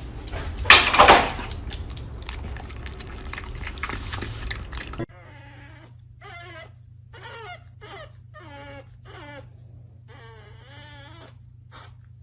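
Loud, noisy commotion with a sharp peak about a second in, cutting off suddenly after about five seconds. Then a dog whines in a string of short calls that waver in pitch.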